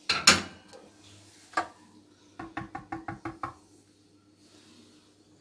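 A sharp knock at the start and another about a second and a half in, then a quick run of about eight taps in roughly a second: a utensil knocking against a mixing bowl as the yeast mixture is added to the dry flour mix.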